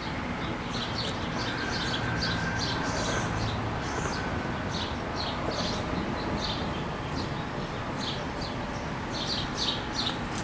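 Small birds chirping: short, high chirps repeating over and over against a steady background hiss.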